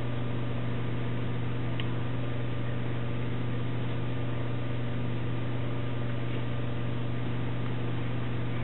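Steady low electrical hum with a faint hiss underneath.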